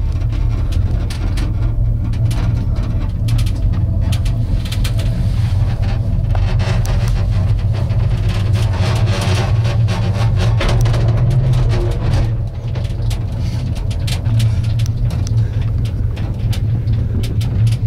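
Small gondola cabin travelling along an aerial tramway cable: a steady low rumble with frequent clicks and rattles, busiest around the middle.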